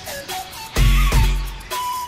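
Background music with a beat: a deep bass hit lands about a second in, under held melody notes.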